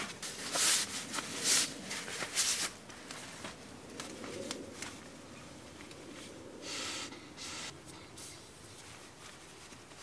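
Rustling and swishing of a puffy sleeping bag and pillow being handled and spread out on a bed inside a car, with several short loud swishes in the first few seconds and a longer one about seven seconds in.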